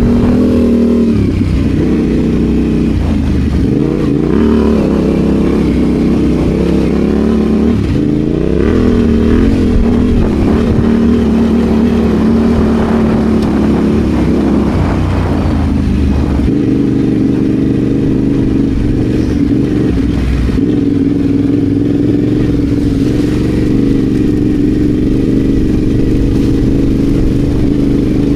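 Adventure motorcycle engine running under way, loud and continuous, its revs falling and climbing again several times as the rider works the throttle and gears.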